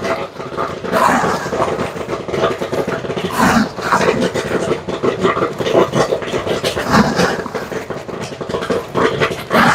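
Popcorn kernels popping rapidly and densely in the machine's pot, a continuous crackle of sharp pops over a steady hum from the 12-volt stirrer motor.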